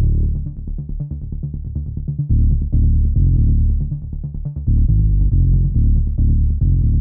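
Electronic background music with a steady, bass-heavy pulsing beat.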